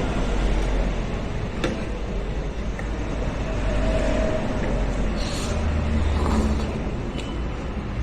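Steady background rumble of road traffic, with a few light clicks.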